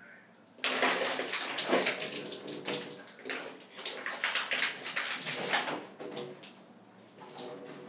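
Water from a plastic water bottle spilling and splashing over a person and onto a tiled shower floor during a failed attempt to gulp the whole bottle down at once. It starts suddenly just after half a second in and goes on in irregular surges.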